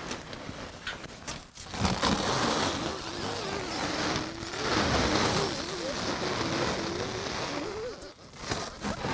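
Plastic stretch wrap being pulled off a hand roll and wound around cardboard boxes. It makes a continuous crackling screech with a wavering squeal in it, starting about two seconds in and breaking off shortly before the end.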